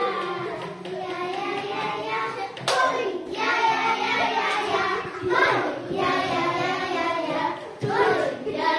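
A group of young girls singing a song together, with a sharp clap-like knock a little under a third of the way in.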